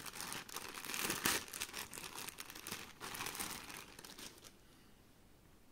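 Packaging crinkling and rustling as it is handled and opened, in irregular bursts that stop about four and a half seconds in.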